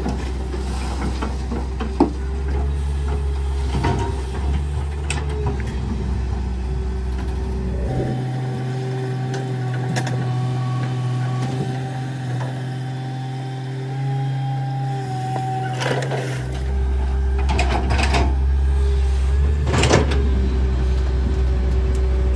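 Komatsu PC200 crawler excavator's diesel engine running steadily under load while it works, with occasional sharp knocks and clanks. The low rumble drops out for several seconds in the middle.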